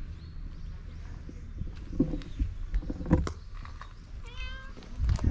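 A cat meows once, a short cry about four seconds in. A few dull thumps fall around it, the loudest just before the end.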